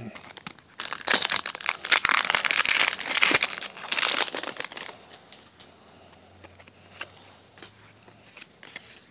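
Foil Pokémon card booster pack wrapper being torn open and crinkled for about four seconds, then a few soft clicks and light rustling as the cards are slid out and handled.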